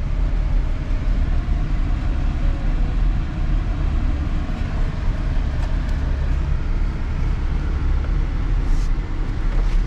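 Steady low rumble of engine and road noise, heard from inside a moving car.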